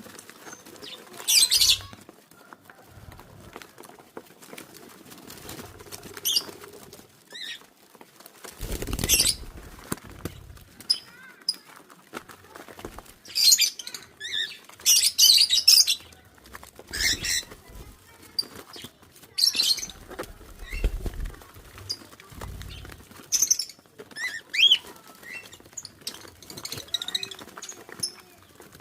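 Quail flapping their wings and giving short, high chirps at irregular intervals, with a few low thumps and rustles between.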